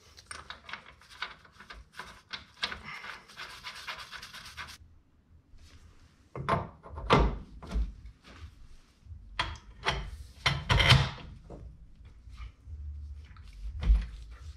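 Tools and parts being handled during wheel-hub work: a few seconds of light clicking and rustle that stops abruptly, then a run of separate knocks and thunks, one of the loudest near the end.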